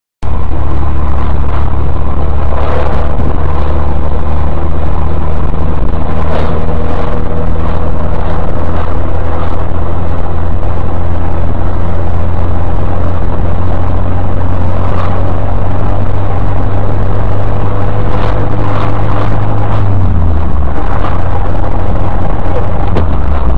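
Engine and road noise of a moving car heard from inside the cabin through a dashcam's microphone: a loud, steady low drone with a faint constant whine above it and occasional light knocks. The engine note shifts in pitch about 20 seconds in.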